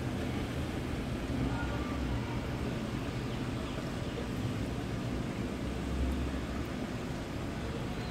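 Steady low background hum and rumble with no distinct events.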